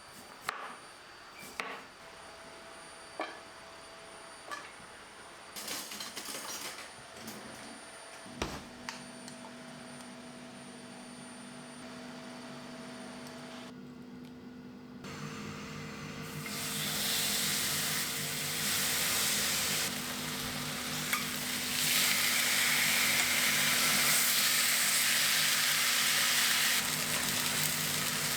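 A few scattered kitchen clicks and knocks, then a steady low hum comes on about a third of the way in. Past the halfway mark, food starts sizzling and frying in a hot pan, and the sizzle grows louder toward the end.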